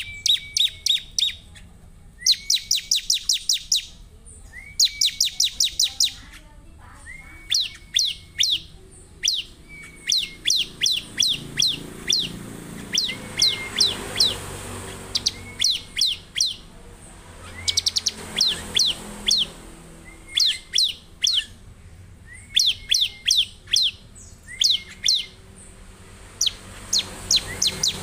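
Ciblek (bar-winged prinia) singing vigorously: repeated bouts of rapid, high, sharp notes, about eight to ten a second. Each bout opens with a lower rising note, and a new bout comes every two to three seconds.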